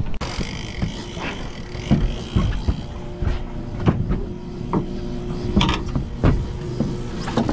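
Sharp knocks and thumps of gear being handled against an aluminium boat hull, about seven in all, over the steady hum of an outboard motor running.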